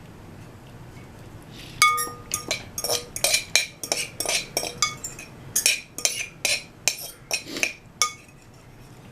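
Eating utensil clinking against a bowl: a quick, uneven run of about twenty light clinks starting about two seconds in and stopping near the end, a few of them leaving a short ring.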